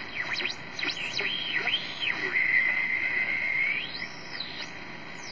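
TenTec Model 1054 regenerative shortwave receiver being tuned across a band: whistles sweep up and down through its speaker over band hiss. One whistle holds steady for about a second and a half, then rises and falls again near the end. The whistles are heterodyne beat notes, heard when the regeneration is advanced far enough for the detector to oscillate and the tuning passes across station carriers.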